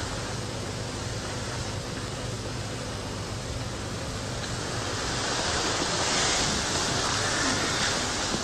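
A steady rushing hiss with no voices. It swells slightly from about five seconds in.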